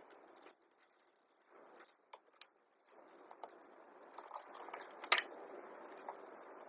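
Hand tools and metal hardware clinking and clicking during turbo replacement work, over a steady faint hiss, with one sharp metallic clink about five seconds in.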